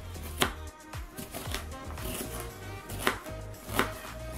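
Kitchen knife slicing a red bell pepper on a plastic cutting board: a few sharp chopping strikes, the loudest about half a second in and twice near the end.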